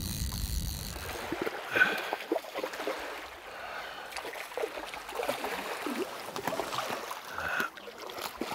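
Shallow river water rippling and lapping around wading anglers, with small splashes throughout. Near the end a hooked Arctic char splashes at the surface as it is played in close.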